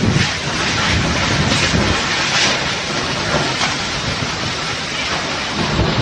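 Hurricane-force wind blowing with a steady rushing noise and wind-driven rain, gusts buffeting the microphone near the start.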